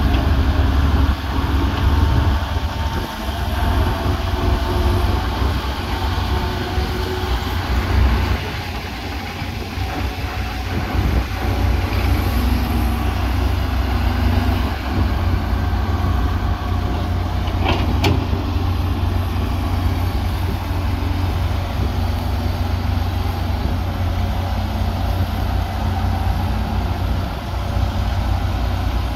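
Diesel engines of a wheeled excavator and farm tractors running, a steady low rumble, with their pitch shifting now and then as they work. A single sharp knock stands out about 18 seconds in.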